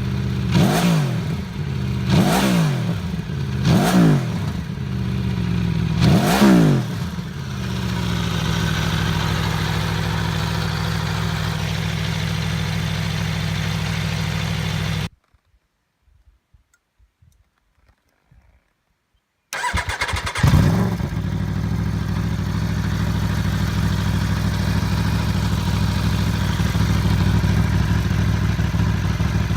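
Aprilia Tuono V4 1100 RR's V4 engine blipped through four quick revs that rise and fall, then settling to a steady idle. The sound cuts out for about four seconds, then returns with one short rev and settles back to idle.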